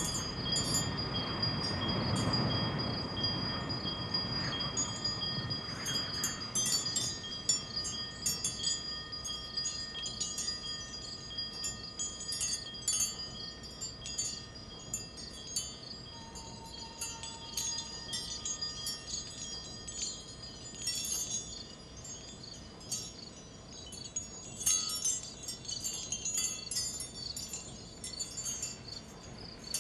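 Light metallic chimes tinkling irregularly over faint, steady high ringing tones. A low swell underneath fades away over the first few seconds.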